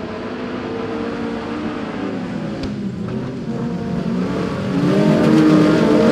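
Several speedway racing cars' engines revving together, their pitches rising and falling as they accelerate and lift off, with one sharp click a little before halfway. The engines grow louder about two-thirds through as the pack passes close.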